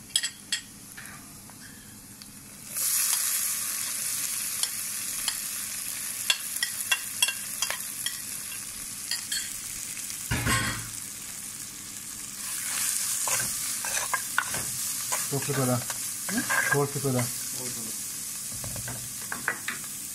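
Food frying in a pan: a sizzle starts abruptly about three seconds in and carries on steadily, with sharp clicks and knocks throughout and a dull thump near the middle.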